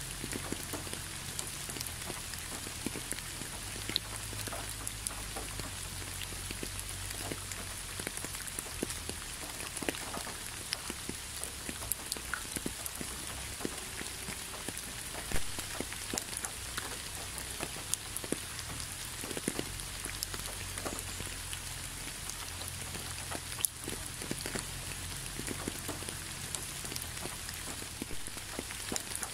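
Steady rain falling, with many separate drops striking a surface, and a few louder single drops standing out here and there.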